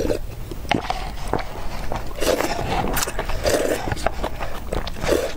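A person drinking soup straight from a paper instant-noodle cup: wet slurps and a few gulps, with small clicks, then noodles pushed into the mouth with chopsticks from the cup's rim.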